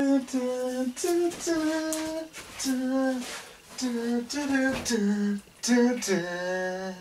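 A single voice singing a tune unaccompanied, in a run of short held notes with brief breaks between them; the last note is held longest, near the end.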